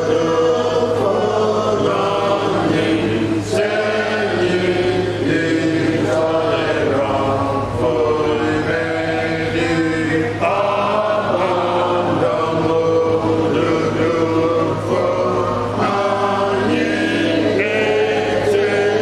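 A group of voices singing a church hymn together, chant-like, over a steady low hum.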